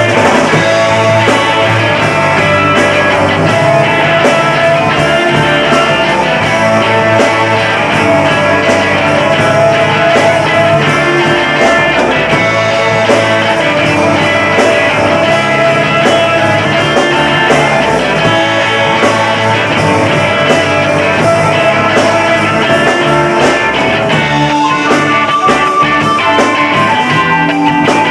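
Rock band playing live and loud: electric guitar, bass guitar and drums in a steady groove.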